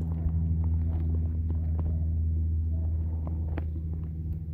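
A steady low mechanical hum runs throughout and eases off near the end, with scattered small clicks and rustles over it.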